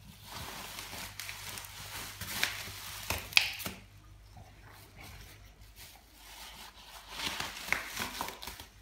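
Plastic bubble wrap crinkling and rustling as a boxer dog noses and paws through a pile of it, with a few sharp crackles about a third of the way in and again near the end.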